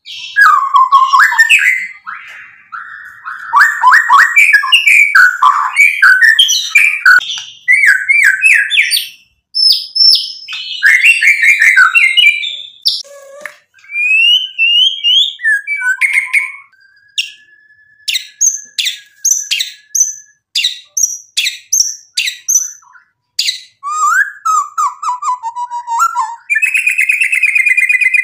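White-rumped shama in full song: a fast, varied run of loud whistles, slurred and sliding notes and chattering trills. Partway through it gives a series of sharp clicking notes, and near the end it breaks into a rapid buzzy trill.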